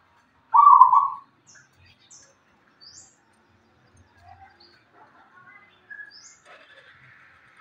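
Zebra dove (perkutut) giving one loud cooing phrase about half a second in, lasting under a second. Faint, short, high chirps follow.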